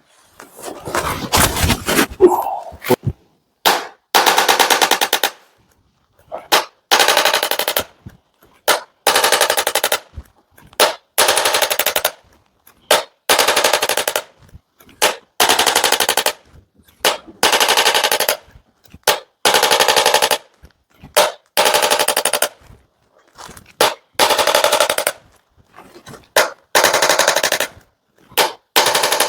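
Handheld electric percussion device, such as a chiropractic adjusting gun, firing in bursts of very rapid clicking, each about a second to a second and a half long, repeated about a dozen times with short pauses between.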